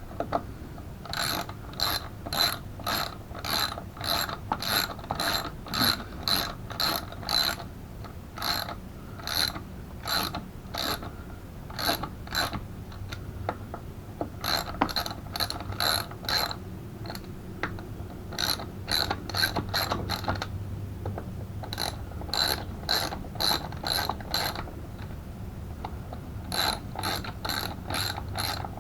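Hand ratchet wrench clicking about three times a second in runs of a few seconds, with short pauses between runs, as a bolt is turned.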